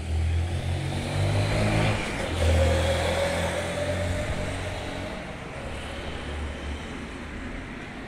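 A motor vehicle passing close on a city street: its engine grows louder, is loudest about two and a half seconds in, then fades away into steady traffic noise.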